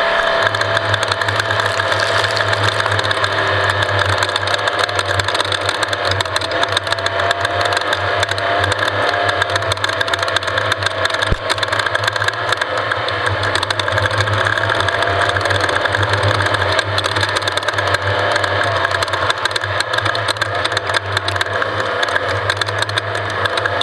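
Off-road race vehicle's engine running steadily under way, its pitch wavering slightly up and down, over a constant rattle and clatter.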